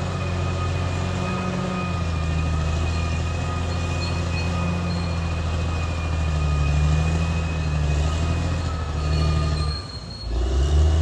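Caterpillar D6R XL crawler bulldozer working, its diesel engine running steadily under load with a steady high squeal over it; the sound drops briefly near the end and then resumes.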